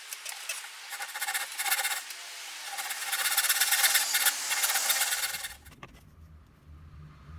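Rapid scraping strokes of a hand tool abrading wood, a rasping or sanding sound that stops about five and a half seconds in. A low, steady beat comes in near the end.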